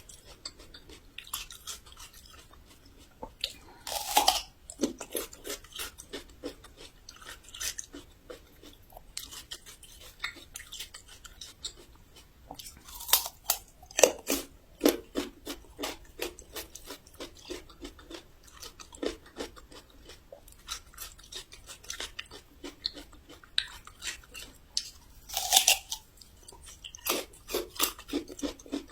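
Raw yellow ginger root being bitten and chewed: crisp, snapping crunches in a steady run, with a few louder bites standing out among them.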